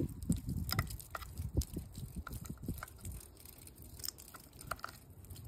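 Light, irregular clicks and taps from a flathead screwdriver and fingers turning the small brass test-cock screws on a sprinkler backflow preventer, with water dripping from an opened test cock as the device drains.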